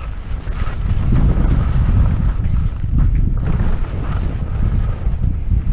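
Wind rumbling and buffeting on the microphone of a body-worn camera moving fast down a snow slope. Every second or so there is a brief hiss of edges scraping the snow in turns.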